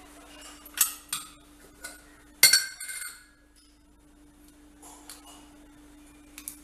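Metal kitchen utensils clinking: a few light clinks in the first two seconds, then one sharper clink about two and a half seconds in that rings briefly, followed by quiet.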